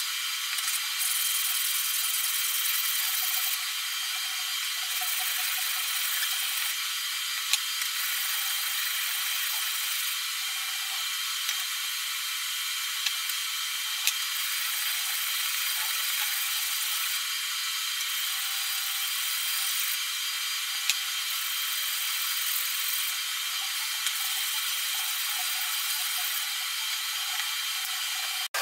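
A steel hand-plane part rubbed back and forth on abrasive paper to flatten it: a steady, thin, scratchy hiss with a few sharp clicks.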